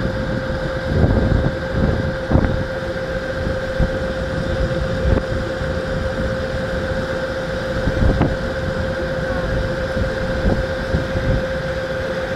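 A tour boat's engine running steadily with a constant hum, and wind on the microphone.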